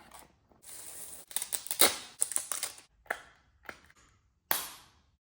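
Packaging being handled and opened by hand: rustling and crinkling with a quick run of sharp clicks and snaps, busiest in the middle, thinning to a few single clicks near the end.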